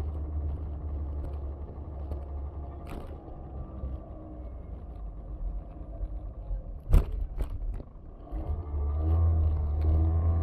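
City street sound of road traffic: a steady low rumble that fades somewhat in the middle and swells again near the end, with one sharp knock about seven seconds in.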